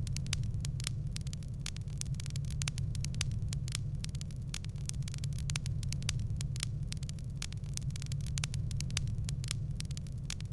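Wood fire crackling in a fireplace: many sharp, irregular pops and snaps over a steady low rumble of the burning fire.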